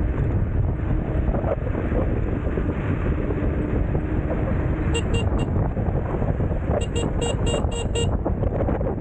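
Wind buffeting the microphone on a moving electric scooter, with an electronic scooter horn beeping: three short beeps about five seconds in, then a quick run of about six beeps near the end.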